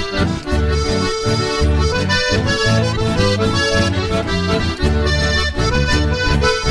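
Instrumental accordion music in chamamé style, with a steady bass line under the melody.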